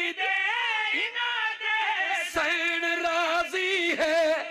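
Men singing a Punjabi qasida refrain in long held notes that bend and slide between pitches.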